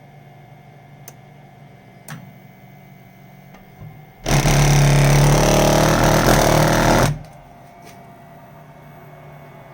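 Weil-McLain boiler making a loud vibrating buzz with a strong low pitch for about three seconds, starting about four seconds in and cutting off suddenly, over a steady low hum.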